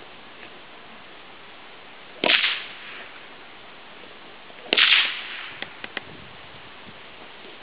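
Two sharp cracks about two and a half seconds apart, each fading quickly, typical of a protection helper's padded training stick striking the dog while it grips the bite sleeve; three faint short ticks follow soon after the second.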